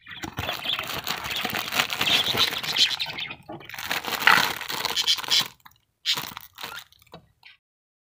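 Clear plastic wrapping crinkling as it is handled and squeezed: dense crackling for about five and a half seconds, then a few short crinkles.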